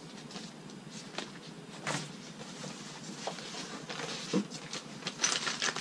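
Paper sheets handled and a cardboard box rummaged through, with scattered light knocks and rustles. Near the end a plastic bag of hardware starts to crinkle loudly.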